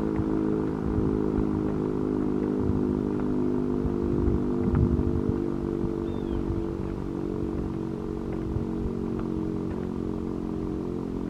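Sentry 10V outdoor warning siren sounding a steady alert tone, its pitch held level.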